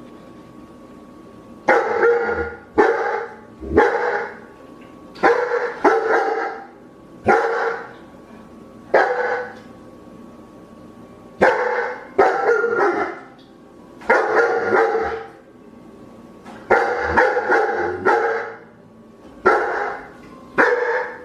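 A dog barking over and over: single barks and quick runs of two or three, with pauses of one to two seconds between them.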